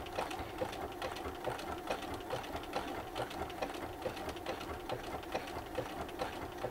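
Bernina sewing machine running steadily as it sews a decorative zigzag-type stitch through the quilt block, with a regular ticking through the run.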